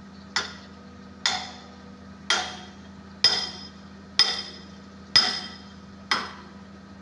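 Hammer striking steel at an excavator's bucket linkage, driving a bucket pin during a bucket change: seven ringing metallic blows about one a second, the later ones louder. The excavator's engine idles steadily underneath.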